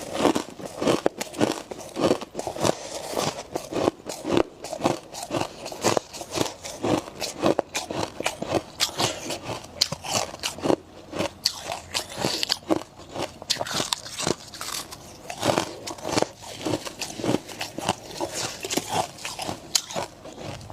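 Close-miked chewing and biting of powdery freezer frost and ice: a steady, irregular run of crisp crunches, several a second.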